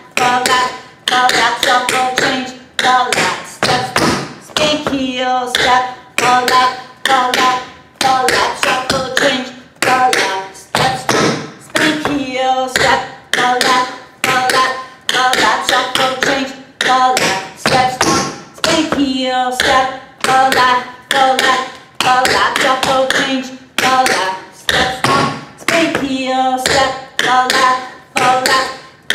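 Metal taps on tap shoes striking a hard floor in a fast, continuous rhythm of the Buffalo time step: spanks, heels, steps, falling laps and shuffle-changes, each click ringing briefly.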